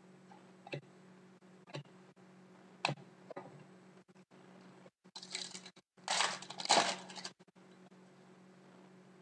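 Trading cards and packs being handled: a few light taps in the first few seconds, then two bursts of crinkling, rustling handling about five to seven seconds in, the loudest part.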